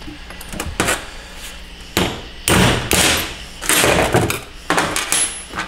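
About half a dozen irregular metal knocks and clunks from hand tools and parts being worked on a 4L60 transmission case at the 1-2 accumulator.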